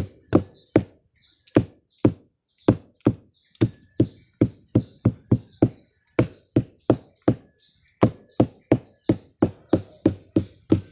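Sugar palm flower stalk being beaten with a hand-held beater, a run of dull knocks about two to three a second at an uneven pace, with short gaps about a second and two seconds in. This is the first beating of a fresh, untapped stalk, done to bring on the sap flow for tapping.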